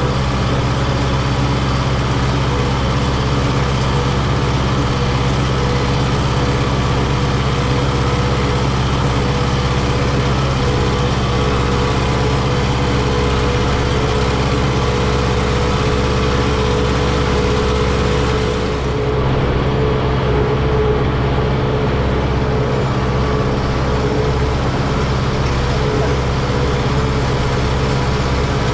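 Diesel engine of a farm tractor or truck running steadily at constant speed. About two-thirds of the way through the sound shifts briefly and the high hiss drops away, then the engine carries on as before.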